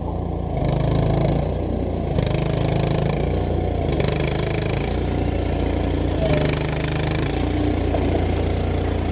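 An engine running steadily, with a high hissing that swells and fades about every two seconds.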